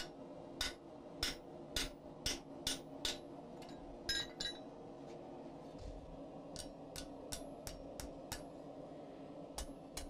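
Hand hammer striking a hot cut chisel into a red-hot steel bar on an anvil, about two blows a second. About four seconds in comes a ringing metallic clink. Then a run of lighter hammer blows falls directly on the hot bar to fold the nicked material over on itself.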